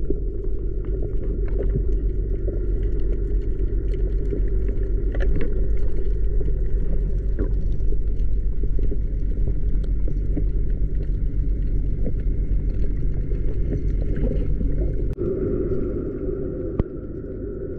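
Steady muffled underwater rumble picked up through a camera's waterproof housing, with faint scattered clicks throughout; the deepest part of the rumble drops away about fifteen seconds in.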